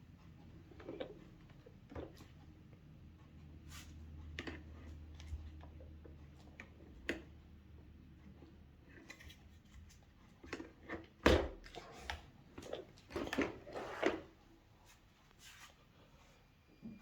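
Vacuum cleaner parts and accessories being handled and fitted: scattered clicks, taps and knocks, the loudest about eleven seconds in, followed by a quick run of knocks a couple of seconds later.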